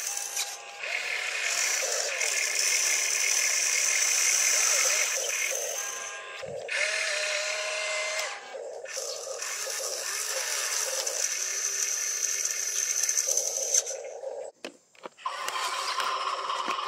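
Electric motors of a model RC excavator whining as it digs and swings to load a dump truck. The whine changes pitch as different functions move, and cuts out briefly near the end with a few clicks before starting again.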